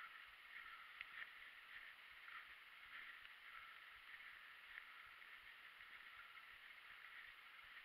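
Near silence: faint crackling and rustling of a mountain bike rolling over a leaf-covered dirt trail.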